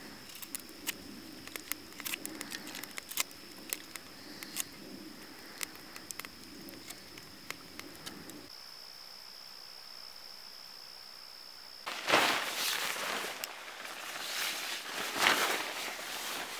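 A knife whittling a wooden tent stake beside a campfire: a run of sharp ticks and crackles over a steady high insect trill. Later there are two loud bursts of rustling.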